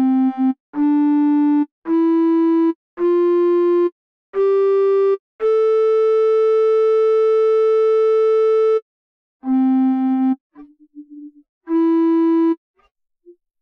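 Steady synthesized keyboard tone playing a scale one note at a time: six notes step upward, the last held about three seconds, then three more notes start again lower, with faint broken fragments between the first two, as the plugin's note filter passes only the selected notes of the scale.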